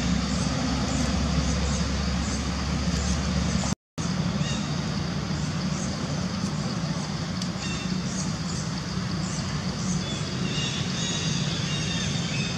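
Steady low rumbling outdoor background noise, with a faint high pulsing that repeats about twice a second. A few brief high chirps come in the second half. The sound cuts out for a split second about four seconds in.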